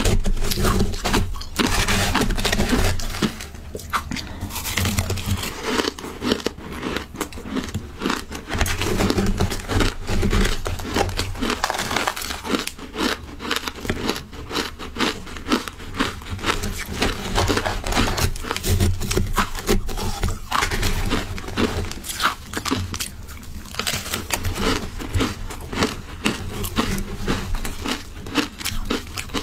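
Close-miked chewing and crunching of matcha shaved ice: a dense, irregular crackle of ice breaking between the teeth, with a metal spoon scooping more ice out of a plastic tub.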